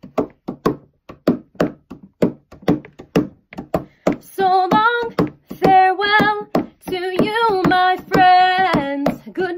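A steady clapping beat, about three claps a second. About four seconds in, a woman starts singing over it in held, wavering notes.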